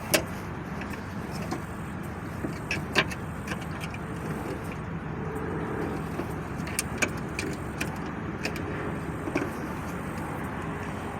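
Scattered light clicks and knocks of a piece of wood being worked into the trunk latch's open-sensor contacts, over the steady hum of a car idling.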